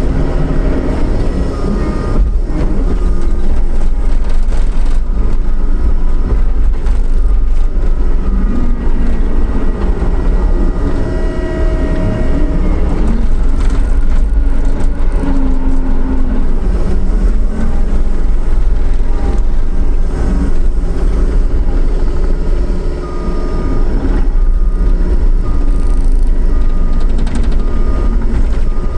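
John Deere 333E compact track loader working, its diesel engine running steadily loud with its pitch rising and falling as the machine is worked. A backup alarm beeps now and then, most clearly near the end.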